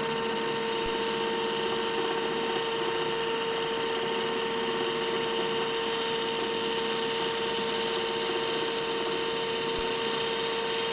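Taig benchtop lathe running steadily, a constant hum with one clear tone, while a carbide bit takes a light hand-fed finishing cut in aluminum without cutting fluid.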